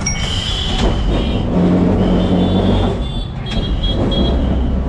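Kolkata tram running through street traffic, heard from the driver's cab: a steady low rumble with a motor hum for a second or so, and several brief high-pitched traffic horn toots.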